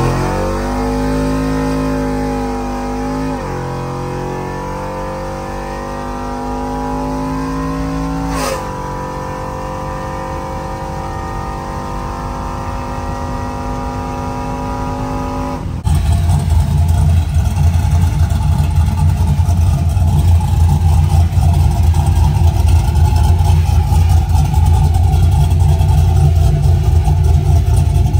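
Cammed 370-cubic-inch LS V8 pickup engine accelerating through the gears of its 4L80E automatic, heard from inside the cab. The pitch climbs, drops at an upshift about three seconds in and again with a click about eight seconds in, then climbs slowly. About sixteen seconds in it switches to the engine heard from outside, running with a loud, low, choppy rumble.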